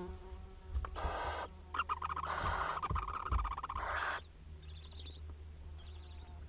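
Barn owl owlets giving hissing, rasping begging calls while being fed in the nest: a short call about a second in, then a longer, louder stretch from about two to four seconds, with fainter rasps after. A steady low hum runs underneath.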